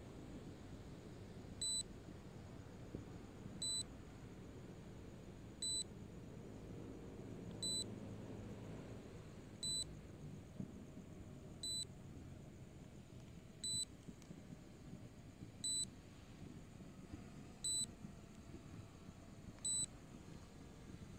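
SJRC F11s 4K Pro drone controller's warning beep: a short, high electronic beep repeating once every two seconds while the drone flies itself home in return-to-home mode, over a faint low hiss.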